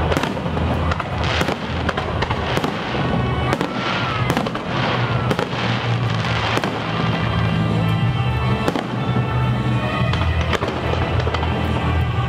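Aerial fireworks bursting and crackling in quick succession, with many sharp reports, over music played for the display.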